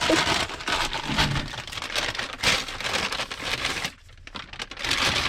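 A bag of new lug nuts and wheel studs crinkling and rustling as it is handled.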